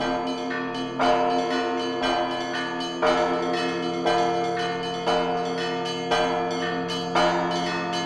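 Church bells ringing a peal (perezvon): a strong strike about once a second with lighter strikes between, each bell's tone ringing on and overlapping the next.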